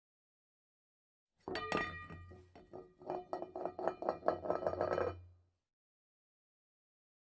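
Rapid clinking and tapping with ringing tones over a low hum, starting about a second and a half in and cutting off abruptly after about four seconds.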